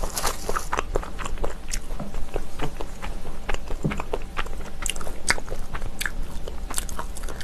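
A person chewing kimchi close to the microphone: irregular crunches and crackles in quick succession.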